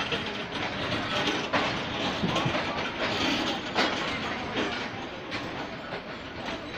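Passenger train coaches rolling past while being backed into the platform: a steady rumble of wheels on rail, with irregular clicks and knocks as the wheels cross rail joints.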